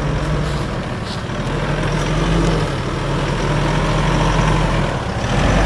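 Mitsubishi Pajero Sport 4x4's engine running at low revs as it crawls along a dirt track, a steady low hum that swells slightly a couple of times.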